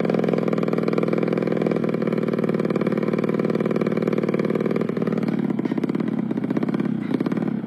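Bored-up Suzuki Smash motorcycle's single-cylinder four-stroke engine running steadily, its firing pulses even. The note turns less even from about five and a half seconds in.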